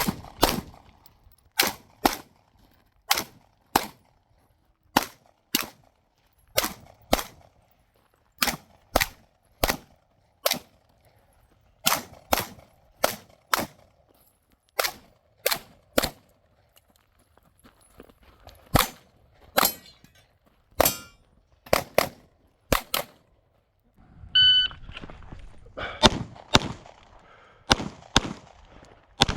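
Glock 45 9mm pistol firing in quick pairs about half a second apart, with pauses of about a second between pairs as the shooter moves from target to target on a USPSA stage. The shots stop near 23 seconds in, a shot timer beeps once about a second later, and a new string of pairs begins.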